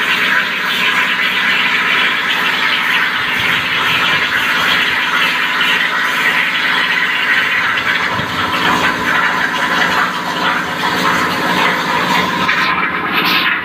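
CNC plasma cutter torch cutting steel plate, a loud steady hiss of the arc; near the end the sharpest part of the hiss drops away briefly.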